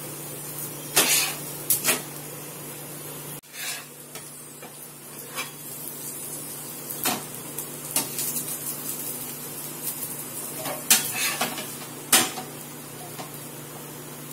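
Aloo paratha sizzling in oil and ghee on a non-stick tawa, with a metal spatula scraping and tapping against the pan several times as it presses and turns the paratha.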